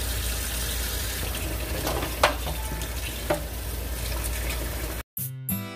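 Kitchen tap running steadily into a stainless steel sink full of whole fish being rinsed, with two sharp knocks about two and three seconds in. Acoustic guitar music cuts in near the end.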